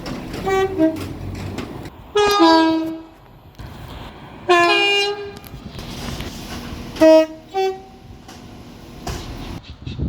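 Train horn sounding several notes at once in a series of blasts: two short toots, two long blasts, then two short toots near the end, over the rumble of the passing train.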